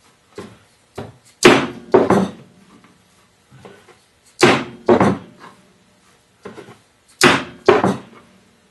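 A mallet striking the spine of a knife blade, driving its edge through a single strand of hemp rope into a cutting board. The blows come in three pairs about three seconds apart, with lighter knocks between them as the blade is set back on the rope.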